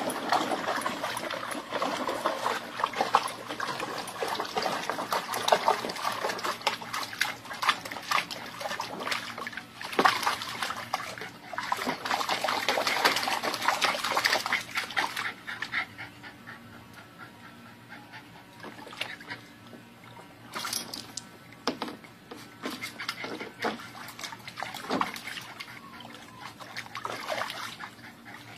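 A dog over splashing, trickling water, busy and loud for the first half and quieter after.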